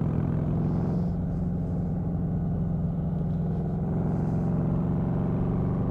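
Motorcycle engine running steadily at cruising speed, heard from the rider's own bike, its pitch holding even with no change in throttle.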